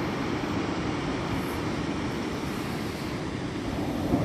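Ocean surf breaking on a beach: a continuous rushing rumble with no distinct events.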